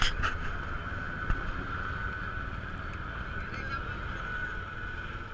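A horn sounding one steady high note, held without a break, over a low rumble. A few sharp knocks come in the first second and a half.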